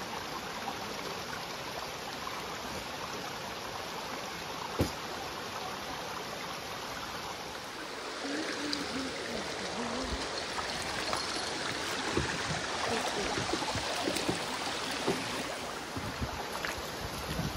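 Shallow creek running over rocks: a steady rush of flowing water. A single sharp click about five seconds in.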